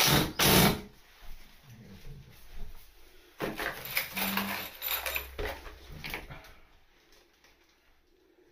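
Screwing timber into exposed floor joists with a cordless drill-driver: two loud, short bursts about a second in, then a run of knocks and scrapes from the tool and wood being handled.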